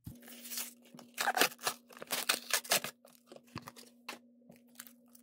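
Plastic and cardboard trading-card blister packaging crinkling and tearing as it is opened by hand, in irregular crackles that are loudest in the first three seconds, over a steady low hum.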